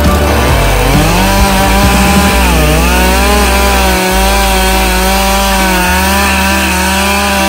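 Stihl chainsaw at full throttle cutting into a standing pine trunk. It revs up about a second in, its pitch dips briefly as the chain loads up in the wood, then it holds steady.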